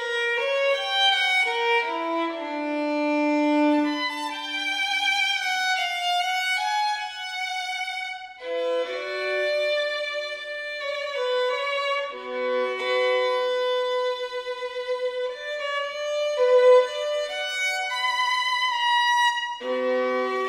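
Background music: a violin playing a melody of held notes with vibrato, with a brief pause about eight seconds in.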